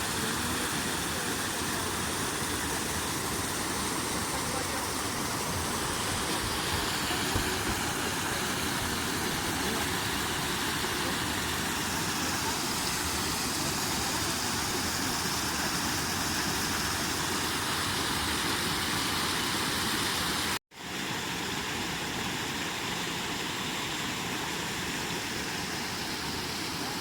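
Waterfall rushing as a steady, even wash of water noise. It cuts out briefly about two-thirds of the way through, then resumes a little quieter.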